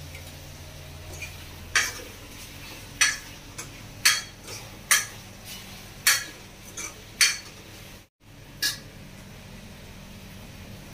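A perforated steel skimmer clinking against a small steel kadhai and bowl while fried kachoris are lifted out of hot oil: about seven sharp metallic clinks, roughly one a second.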